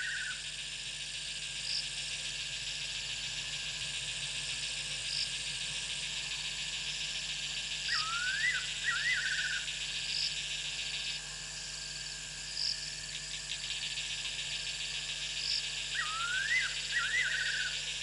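Fiery-necked nightjar calling: a short whistled phrase, a slurred note followed by a few quick trilled notes, given twice, about 8 seconds apart. A steady night chorus of insects runs underneath.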